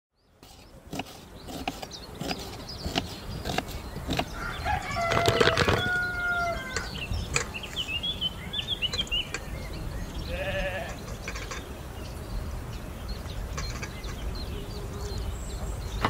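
Farmyard animal calls: one long held call about five seconds in, and a short wavering bleat about ten seconds in, with bird chirps between them. Scattered light clicks run underneath.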